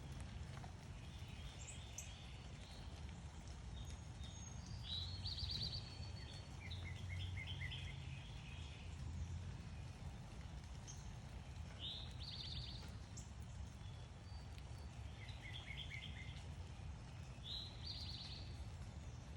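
Songbirds chirping in short repeated phrases every few seconds, each a quick high rising note run into a string of rapid chirps, over a steady low background rumble.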